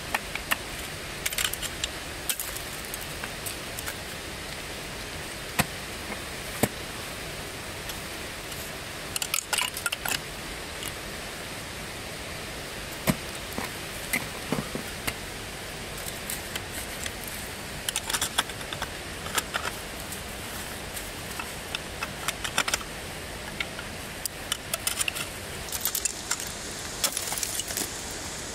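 Ice climbing gear at work: irregular sharp clicks and short clusters of metallic jingling from carabiners and ice screws on a climber's harness, with single strikes of ice axe picks and crampons into ice, over a steady hiss.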